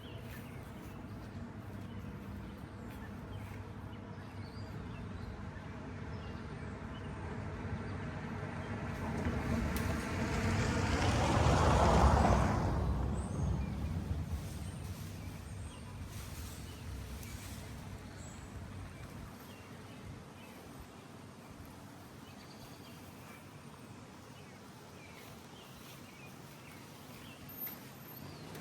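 A motor vehicle passing by: its engine and tyres grow louder, peak about twelve seconds in, then fade away.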